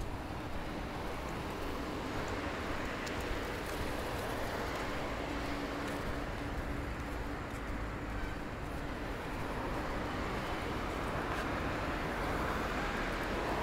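City street ambience: a steady wash of traffic noise, with a faint steady hum through the first two-thirds.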